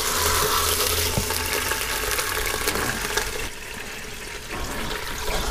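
Turkey breast sizzling in hot olive oil in the nonstick inner pot of an electric pressure cooker on its browning (sauté) setting, a steady frying hiss that is louder for the first three seconds or so and then dies down.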